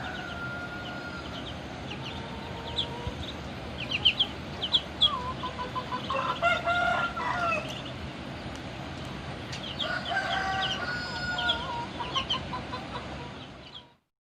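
Fighting-breed game roosters crowing three times: a faint crow near the start, a louder one about six seconds in and another about ten seconds in. Short sharp clucks and chirps come between the crows.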